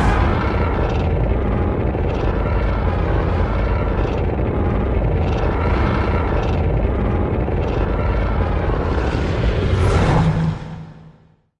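Baragon monster sound effect: a long, deep rumble that runs steadily for about ten seconds, then fades out.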